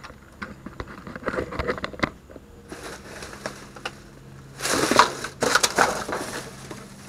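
Plastic trash bags and a cardboard box being grabbed and pulled about by hand: irregular rustling and crinkling, loudest in a dense burst a little past halfway through.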